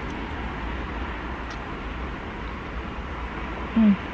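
Steady low rumble inside a car, with a short, loud hummed 'mm' sliding down in pitch near the end, as someone savours a mouthful.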